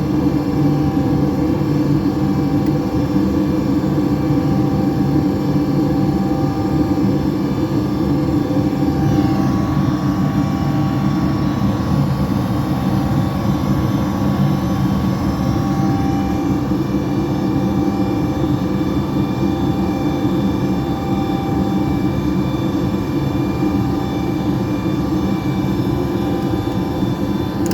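York gas furnace running: a loud, steady rushing hum with several steady tones over it, and a faint high whine joining about sixteen seconds in.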